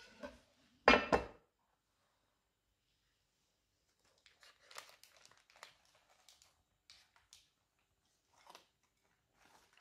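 Baking parchment crinkling and tearing as a papillote is pulled open by hand, with a loud crackle about a second in and softer, scattered rustles through the rest.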